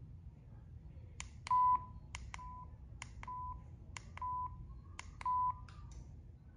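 Handheld talking pen's volume buttons clicking, each press answered by a short single-tone beep from the pen's speaker confirming the volume step; five beeps in all, dropping in loudness and then getting louder again.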